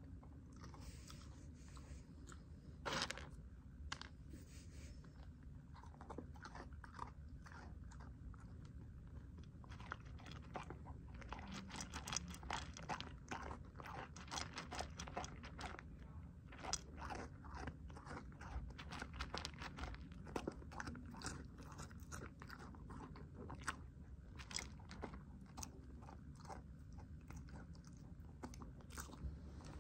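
Mini goldendoodle chewing and crunching her food: scattered crunches at first, then steady crunching from about ten seconds in.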